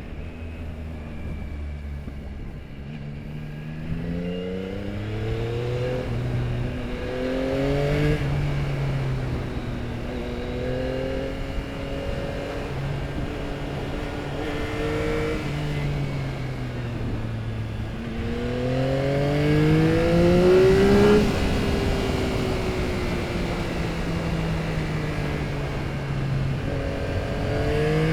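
Yamaha R9's three-cylinder engine through an Akrapovic exhaust, pulling up through the gears with its pitch climbing and dropping back at each upshift. It is loudest at a hard pull about three quarters in, then its pitch falls steadily as the bike slows, before it picks up again at the end.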